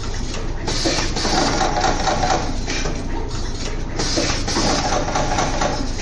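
Automatic wire stripping, twisting, tinning and crimping machine running, its mechanisms cycling over and over in a steady repeating mechanical pattern.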